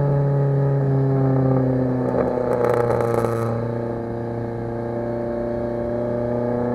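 2011 Kia Forte EX's four-cylinder engine heard through its exhaust, the note falling as the revs drop. A burst of popping and crackling comes about two to three seconds in as the revs fall, then the note holds and starts to rise again near the end.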